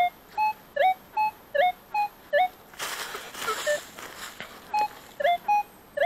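Minelab Equinox metal detector giving repeated target beeps, about two and a half a second, alternating between a flat tone and a short rising tone as the coil is swept back and forth over buried metal. About halfway there is a second of rustling. The detectorist takes the signal for a bottle cap.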